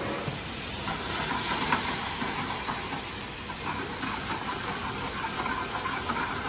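Brown butter sauce sizzling in a hot pan just deglazed with white wine: a steady hiss with small crackles.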